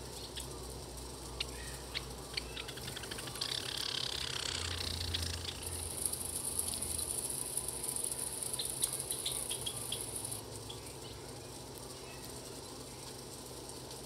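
Small birds at a feeder giving short clicking chips, including a quick run of ticks about three seconds in. A high, steady buzz sets in about six seconds in and stops suddenly about four seconds later.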